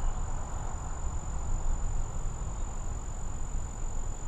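Crickets trilling steadily in one continuous high-pitched tone, over a low rumble.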